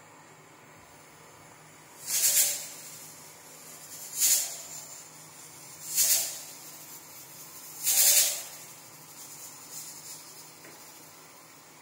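Four short hissing puffs, about two seconds apart, over a faint steady background hiss.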